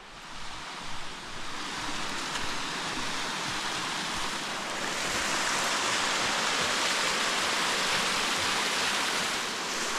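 Mountain stream rushing over rocks, a steady wash of water that grows louder over the first few seconds and then holds.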